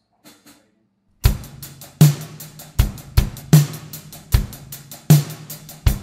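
A rock drum kit starts up about a second in, playing a steady beat of bass drum and snare with cymbals washing over it, the opening of a song. A couple of faint clicks come before it.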